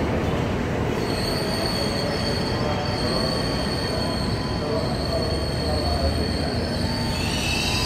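KRL Commuter Line electric train running past the platform, a steady rumble with a thin, high wheel squeal that sets in about a second in and shifts to a lower squeal near the end.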